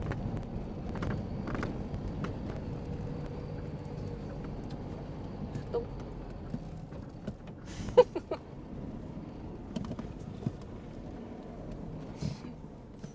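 Car cabin noise while driving: a steady low engine and road rumble, with a few sharp clicks about two-thirds of the way through.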